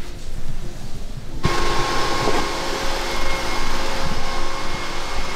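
Soft background music that cuts off abruptly about a second and a half in, giving way to a loud, steady rushing hiss of room noise with a few faint low knocks.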